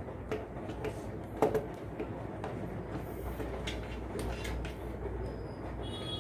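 Screwdriver tightening a wire terminal screw on a miniature circuit breaker (MCB): scattered small clicks and scrapes, the sharpest about a second and a half in, over a low steady rumble.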